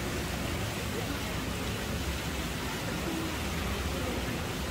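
Steady rushing background noise with faint, distant voices now and then.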